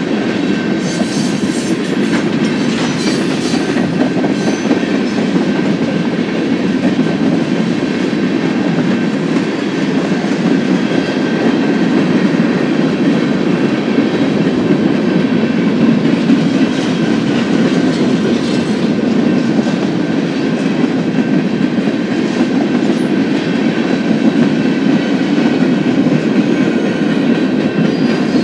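BNSF manifest freight train rolling past, a steady rumble of steel wheels on rail with scattered clicks as the wheels cross rail joints and a faint high whine over it.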